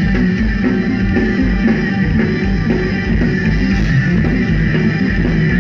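A heavy rock band playing live and loud through a club PA: distorted electric guitars, one of them a double-neck, with bass and drums, played without a break.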